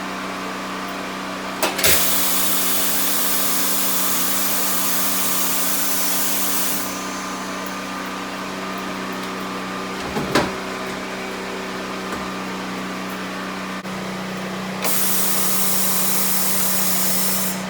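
Pneumatic clamp jaws on a Corghi tire changer being worked from the foot pedal. A clack, then compressed air hisses for about five seconds. A few knocks come around the middle as the jaws grab the wheel rim, and a second hiss of air lasts nearly three seconds near the end, all over a steady hum.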